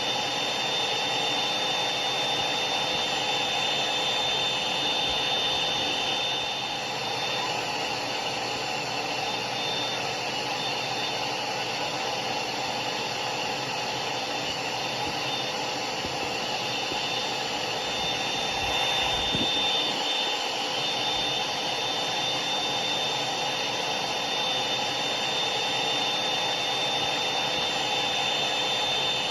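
Hair dryer running steadily: an even rushing blow with a thin high whine held on top.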